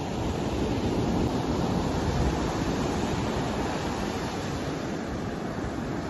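Ocean surf breaking and washing up a sand beach, a steady rush with wind noise on the microphone.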